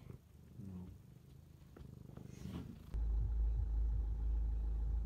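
Faint low sounds, then about three seconds in a loud, steady low rumble starts abruptly inside a car's cabin.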